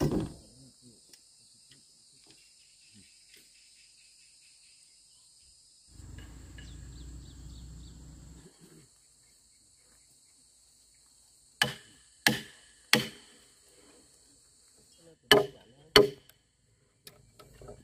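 Sharp blows on timber: three about half a second apart, then two more a few seconds later, over a steady high chirring of insects. A low rumble runs for a couple of seconds in the middle.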